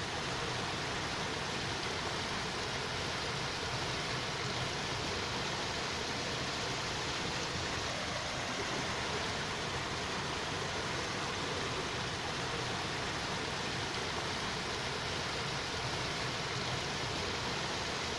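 Steady, even hiss of noise with no change in level and no sound from the bears.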